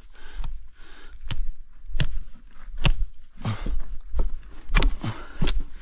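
A hand tool strikes repeatedly, chopping into tree roots and earth: about eight blows, roughly one a second, each a sharp hit over a dull thud.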